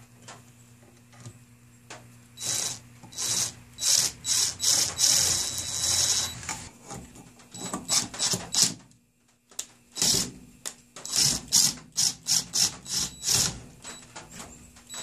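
Cordless impact driver run in many short trigger bursts, driving the exhaust manifold fasteners on a Ford Focus 2.0L SOHC cylinder head, with a short pause about nine seconds in. The fasteners are being snugged only lightly so the manifold stays put while the holes are lined up.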